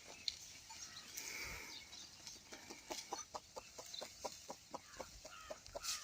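A chicken clucking in a quick run of short notes, about five a second, starting a little before halfway, with faint bird chirps.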